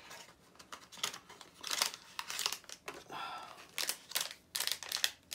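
Blind-box packaging crinkling and tearing as it is opened by hand, in short irregular rustles.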